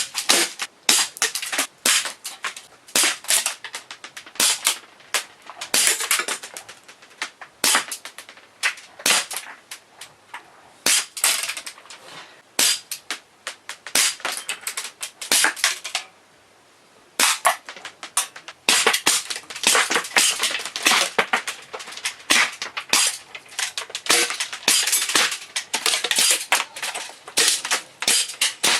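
Airsoft pistols firing quick, irregular strings of shots, with BBs smacking into plastic compact film cameras. There is a short pause about two-thirds of the way through.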